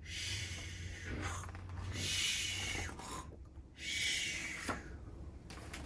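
A person imitating a sleeping bear's snoring with loud, breathy snores: one long snore of about three seconds, then a shorter one near the end.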